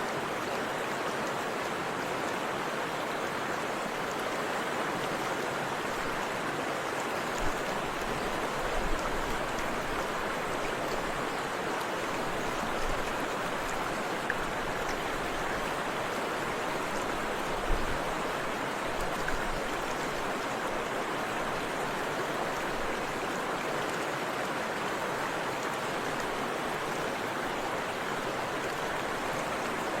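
Forest river water rushing in a steady, even hiss. A few brief low bumps come in the middle of it.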